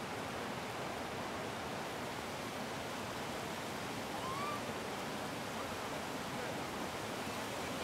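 Steady rush of running water, with one short, faint rising call about halfway through.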